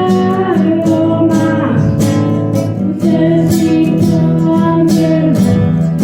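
Music: a strummed acoustic guitar with a singing voice.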